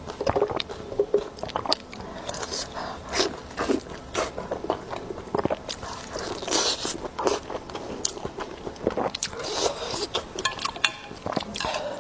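Close-miked eating sounds: a person chewing and biting food, with many irregular sharp clicks and crackles.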